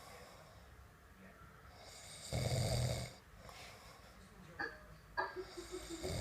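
A sleeping person snoring loudly: a long, rasping snore on the in-breath about two seconds in, and the next one starting about four seconds later.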